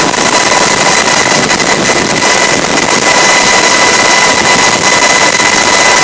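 Helicopter in level flight, heard from on board: a loud, steady rushing noise with a constant high-pitched whine.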